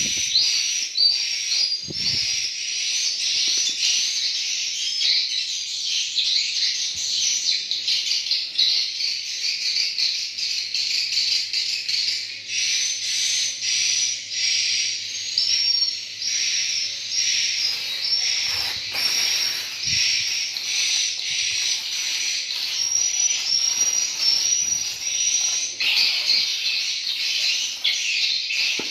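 Dense, continuous twittering of swiftlets: many short, high chirps overlapping without a break.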